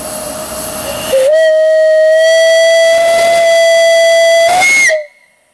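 Antique brass steam whistle on a fire-tube boiler at about 90 psi, blown once for about four seconds: a steady, really loud tone with a rich set of overtones that rises slightly just before it cuts off suddenly. For the first second, before the whistle opens, steam hisses.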